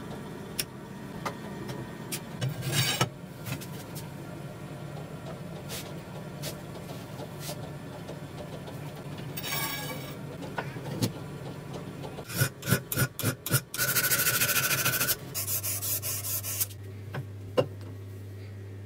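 Hand metalworking on a steel saw-frame bar held in a bench vise: scattered clicks and knocks of steel against the vise. About two-thirds of the way through comes a run of quick scraping strokes, then a couple of seconds of loud continuous rasping on the metal.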